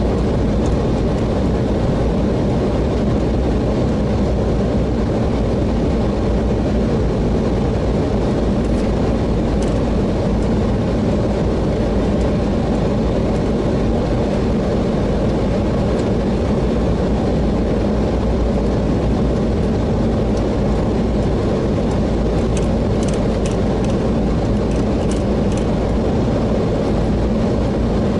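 Steady rush and rumble of airflow and engine noise inside an airliner's cockpit on approach, with a few faint clicks about three-quarters of the way through.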